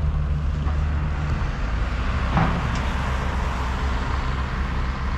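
Outdoor street ambience: a steady low engine drone, as of a motor vehicle or machine running nearby, under a constant outdoor hiss. A short swish comes about halfway through.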